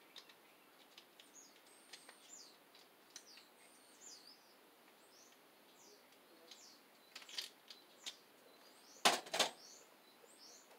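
Quiet scattered clicks and taps of small hand tools and a screw being worked on a circuit breaker, with two sharper clicks near the end. Faint, high, repeated bird chirps sound in the background.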